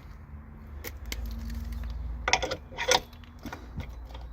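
Metal clinks and rattles of a caravan wheel lock's barrel lock and key being fitted. There are a few sharp clicks, the loudest a little under three seconds in, over a steady low rumble.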